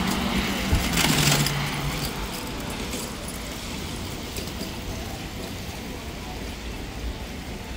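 Road traffic on a wet city street: a steady hiss, with a louder rush of a passing vehicle about a second in.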